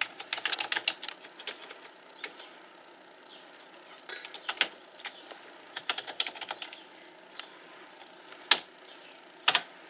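Typing on a Dell RT7D20 keyboard. A quick run of key clicks opens, then scattered single key presses follow, with two sharper, louder clicks near the end.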